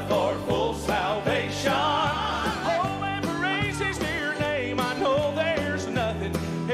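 Live Southern gospel music: a mixed vocal group singing over a band, with steady electric bass notes underneath.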